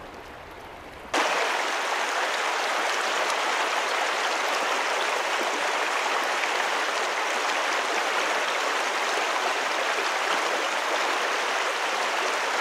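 Creek water flowing, a steady rushing hiss that comes in abruptly about a second in and holds unchanged.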